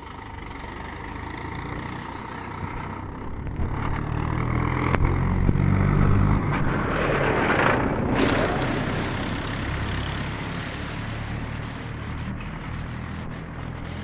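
A motor vehicle passing by: a low engine rumble and road noise that swell over several seconds, peak about halfway through, then fade away.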